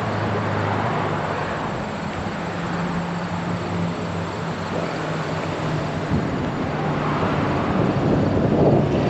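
Steady rushing roar of a flood-swollen river, with a low engine hum beneath it.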